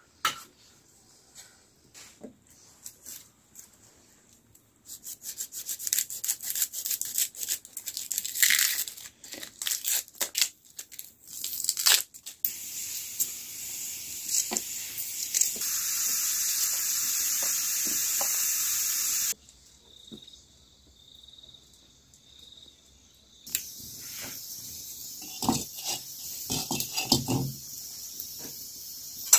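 Dry red onion skins crackling and tearing as they are peeled and broken apart by hand over a steel plate, with scattered clicks. Later there are stretches of steady hiss that start and stop abruptly, and a few low thumps.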